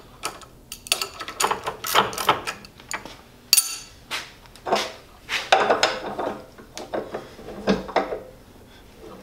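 Irregular metal clinks and clanks, a dozen or so sharp knocks, as tools and fittings are handled on a Bridgeport milling machine's head and table while an edge finder is being fitted.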